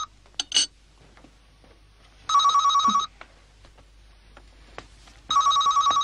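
Home telephone ringing with an electronic warbling trill: the tail of one ring at the start, then two full rings, each under a second long, about three seconds apart.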